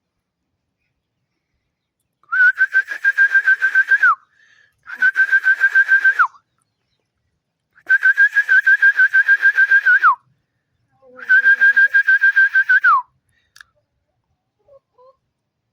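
Rooster crowing four times, each crow a long held note with a fast ripple that drops sharply in pitch at the end.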